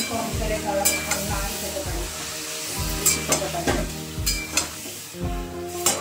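Marinated chicken and sliced onions sizzling as they fry in hot oil and ghee, with a spatula stirring and scraping against the pan in a few sharp knocks. Soft background music with a steady beat plays underneath.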